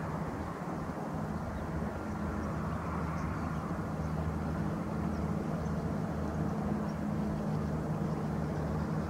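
Steady low engine hum, like distant traffic or a running motor, holding even throughout.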